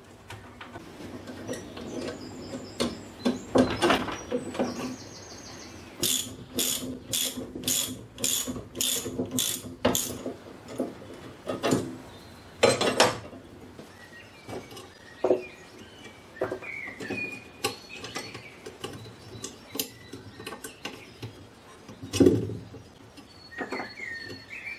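A socket ratchet clicking as bolts are undone from a mower cutting deck's rear hanger, with a steady run of about nine strokes, roughly two a second, midway through. Around it come scattered clinks and knocks of steel parts being handled. Birds chirp faintly near the end.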